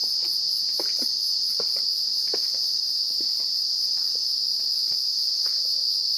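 Dense insect chorus at dusk: a steady, high-pitched, unbroken trill, with scattered faint short chirps underneath.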